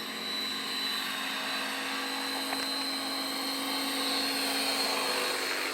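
RC model helicopter, a scale MH-6 Little Bird on a T-Rex 600 flybar mechanism, flying with a steady whine of motor, gears and rotor.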